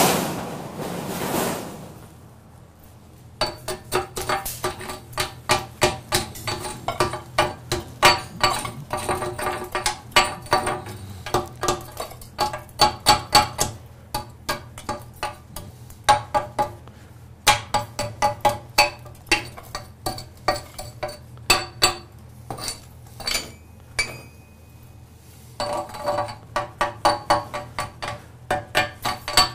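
Chipping hammer striking a steel casting over and over, about three blows a second, knocking torch-cut slag off. Each blow rings metallically. A sharp hiss at the start fades over about two seconds, and there is a pause of a few seconds before the blows resume.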